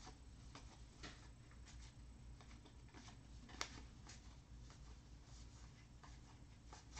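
Faint, soft ticks and swishes of baseball cards being slid one by one off the front of a hand-held stack, with one sharper click about three and a half seconds in.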